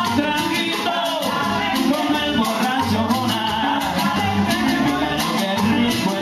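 Cuban son band playing live, an even rhythm running throughout.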